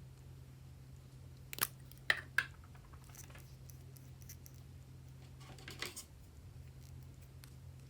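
Butter slime being pressed and worked by hand, giving a few sharp clicking pops, three close together and then a short crackling cluster about two-thirds in, over a low steady hum.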